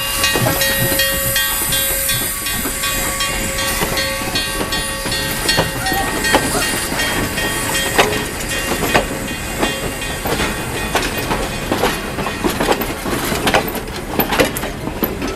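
Steam locomotive #7470, a small 0-6-0 switcher, and its train rolling by with steam hissing. A steady tone carries on for about the first five seconds and then stops, and sharp clanks and clicks of wheels and running gear grow more frequent after that.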